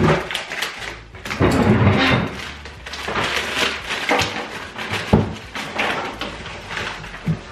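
Kitchen handling noises: a plastic package crinkling and rustling, with irregular clicks and knocks of items on the counter, busiest about a second and a half in.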